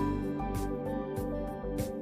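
Background music: held melodic notes over a steady beat, with a sharp percussive hit about every 0.6 seconds.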